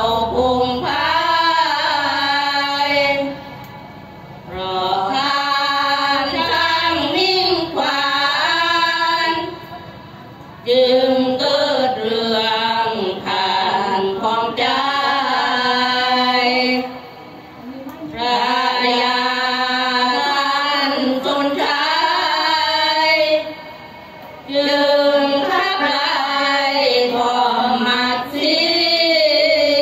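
A women's group singing sorapanya, a Thai Buddhist verse chant, in long sung phrases. Each phrase is separated by a short breath pause, four times in all.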